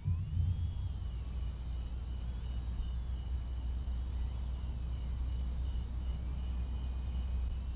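A steady low hum under thin, steady high tones, with bouts of high, rapidly pulsing insect-like chirps coming and going three times.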